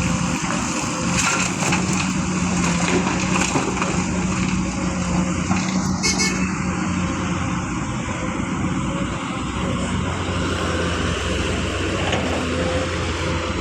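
Diesel engine of heavy construction machinery running steadily at a constant pitch, with scattered knocks and a brief high hiss about six seconds in.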